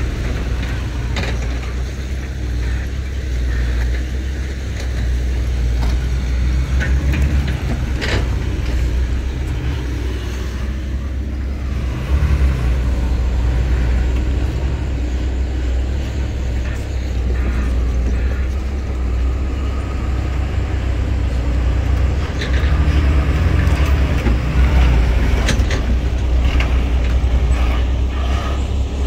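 Diesel engines of heavy earthmoving machinery running steadily, with a few sharp knocks.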